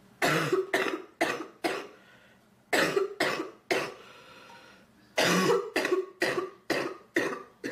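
A sick girl coughing in three fits: four coughs, then three, then six, each cough about half a second after the last.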